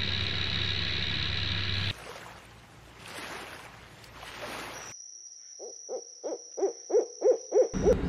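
A series of about eight short, low hoots, evenly spaced and growing louder and slightly quicker, in the last part; before it, a steady noisy stretch that cuts off about two seconds in, then fainter rustling noise.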